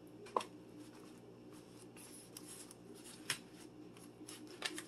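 Faint handling noise of hands pressing and adjusting rolled flour tortillas in a disposable aluminum foil tray, with a short sharp click about half a second in and another about three seconds in.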